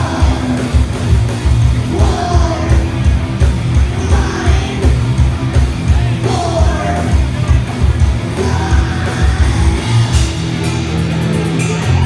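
Live heavy metal band playing: a fast, pounding kick drum, bass and electric guitars under a sung and yelled lead vocal. The kick drum drops out briefly near the end.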